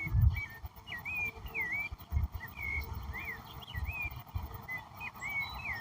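A songbird giving short whistled notes, each a quick slur up or down, two or three a second, over a steady background hiss and low rumbles.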